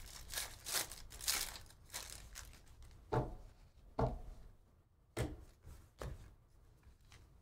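Foil wrapper of a Panini Donruss basketball hobby pack crinkling and tearing open, followed by four short soft knocks about a second apart as the stack of cards is handled.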